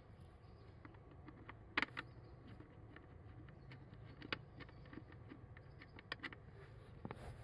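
Scattered light plastic clicks and taps from hands handling the cabin air filter and its housing in a Peugeot Partner / Citroën Berlingo, the loudest pair about two seconds in, over a faint steady low hum.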